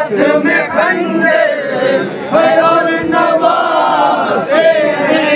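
Men's voices chanting a noha, a mourning lament for the martyrs of Karbala, together in chorus, with long held notes.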